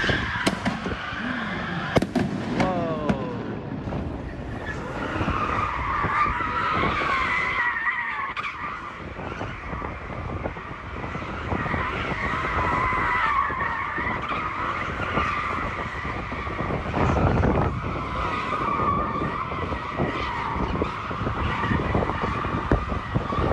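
Car tires squealing in long, wavering screeches as cars do stunts, over a low rumble of engines. A few sharp bangs come about two seconds in.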